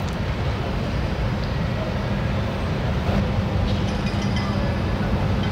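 Airport terminal background: a steady low rumble with a constant hum, unbroken throughout, with a few faint light ticks about four seconds in.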